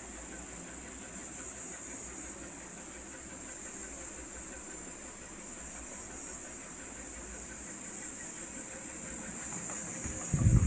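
A steady high-pitched hiss, with a loud low rumble starting near the end.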